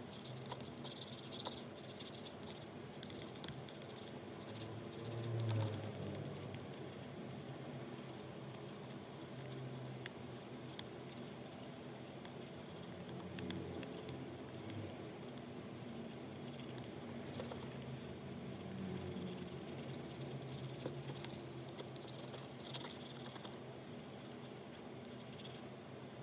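Light clicks, ticks and scraping from small hand tools working on a phone, over a low background hum.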